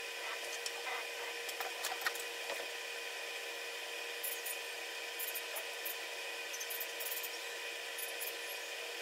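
Steady room hiss and hum. In the first couple of seconds there are a few faint clicks of a Rottweiler's claws on the tiled floor as it walks over and lies down. Later come scattered faint, short, high scratchy ticks.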